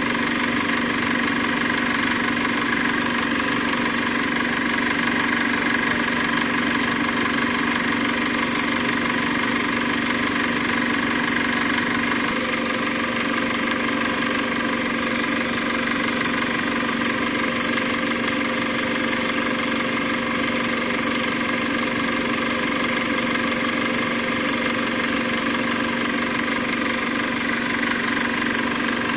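A steady machine running noise with a constant hum, unchanging in loudness, its tone shifting slightly about twelve seconds in.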